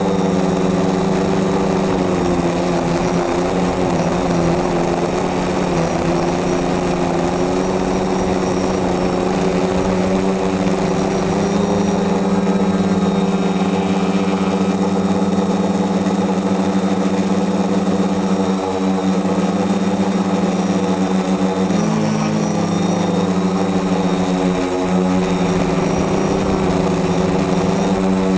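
DJI F450 quadcopter's four electric motors and 10x5 propellers running with a steady buzzing drone, heard from the camera mounted on its frame, with a thin high whine over it. The pitch dips and wavers briefly about two-thirds of the way in and again a few seconds later as the throttle changes.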